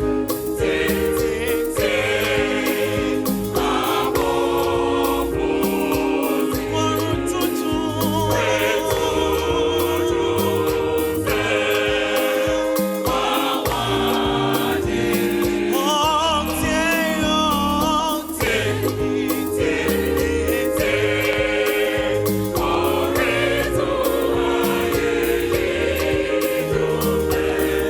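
Choir singing gospel music with band accompaniment over a steady beat, with a wavering solo voice about sixteen seconds in.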